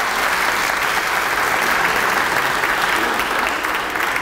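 Audience applauding: dense, steady clapping that eases off near the end.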